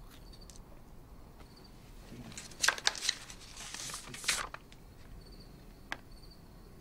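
A man slurping noisily from a small cup, with loud sips about two and a half and four seconds in. Faint cricket chirps repeat in the background.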